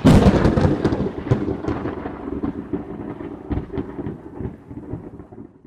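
A close thunderclap from a lightning strike: a sudden loud crack, then crackling and a rolling rumble that slowly fades over about five seconds before stopping abruptly near the end.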